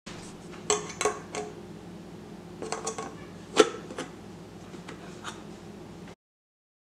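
A metal spoon clinking, tapping and prying at the lid of a metal tea tin: a series of light metallic clicks, with a sharp clink about three and a half seconds in being the loudest.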